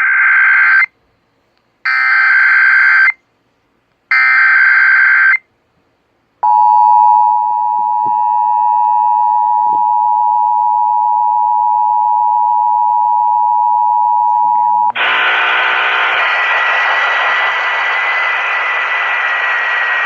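EAS end-of-message: three short SAME data bursts of about a second each, a second apart. Then the two-tone EAS attention signal holds steady for about eight and a half seconds, cuts off, and gives way to a loud, even hiss of radio noise for the last five seconds.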